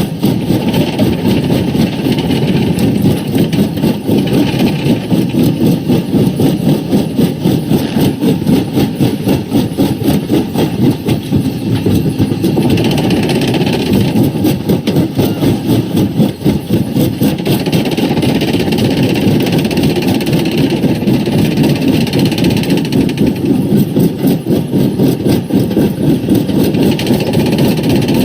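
Quarry primary rock crusher running, with a loud steady machine noise that churns continuously.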